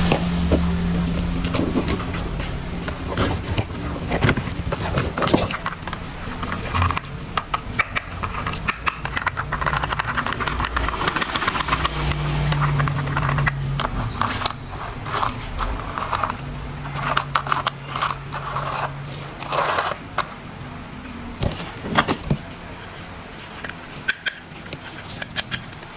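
Plastic toy train parts and their packaging being handled, with many sharp clicks and knocks, scraping and rustling. A low steady hum comes in twice, briefly.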